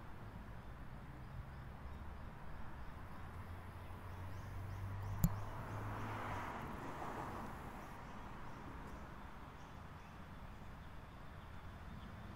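Faint outdoor ambience: a low, distant rumble that swells toward the middle and fades again, with one sharp click about five seconds in.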